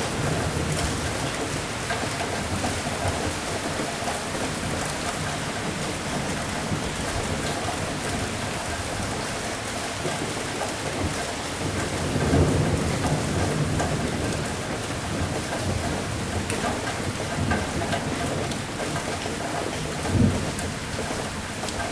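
Steady rain falling, with a rumble of thunder a little past halfway and a short, louder clap of thunder near the end.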